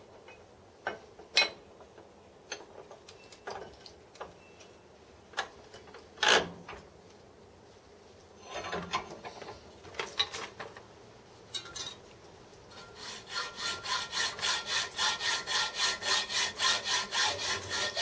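A few sharp clinks and knocks of a metal casting being handled and clamped in a steel bench vise. About 13 seconds in, a hacksaw starts cutting through the casting with steady back-and-forth strokes, about two to three a second.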